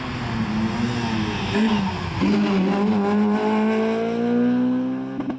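Small rally hatchback's engine at full song through a bend: it comes off the throttle about two seconds in, then pulls away with its note rising steadily under acceleration. The sound cuts off abruptly near the end.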